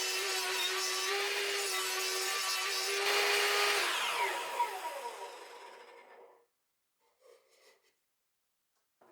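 Table saw running at speed with a steady hum, loud while sawing wood for the first few seconds. It is then switched off, its whine falling in pitch and fading as the blade spins down over about three seconds, followed by a few faint knocks.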